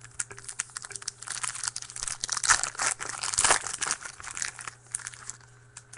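Foil trading-card pack wrapper being torn open and crinkled by hand, a dense crackling that peaks about halfway through and dies away near the end.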